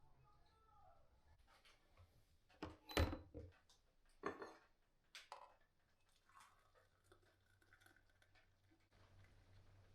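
A few sharp knocks and clinks of kitchenware being handled, the loudest about three seconds in, followed by faint small clicks.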